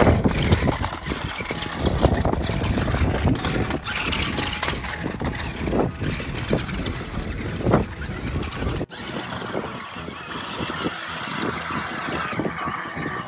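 Megalodon Storm remote-control monster truck driving over rocky dirt, its motor running and tyres crunching; about two thirds of the way through the sound changes abruptly to the truck churning through shallow water.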